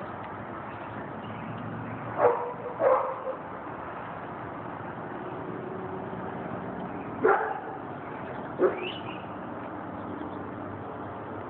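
A dog barking: four short, yelping barks in two pairs, the second pair more widely spaced and its last bark sliding up in pitch.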